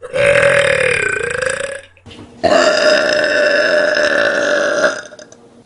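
A person burping twice, loudly and at length. The first burp lasts under two seconds and dips in pitch about a second in. The second lasts about two and a half seconds at a steady pitch.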